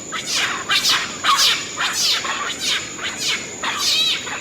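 Celebes crested macaques giving a rapid series of high squealing calls, each falling in pitch, about two a second, over a steady high whine.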